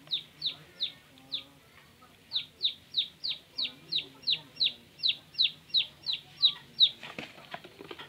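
Baby chick peeping in distress while caught in a python's coils: loud, sharp, falling peeps, about three a second, with a short pause about a second in. The peeps stop near the end, and a few faint knocks and rustles follow.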